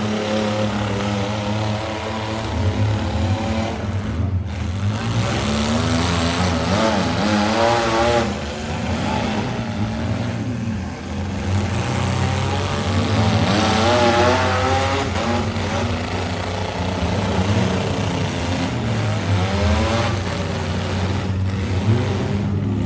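Several demolition derby car engines revving together, their pitches rising and falling over a steady low drone.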